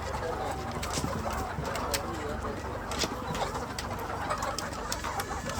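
A flock of point-of-lay layer pullets calling together in a steady, many-voiced chorus of chicken calls, with scattered sharp clicks.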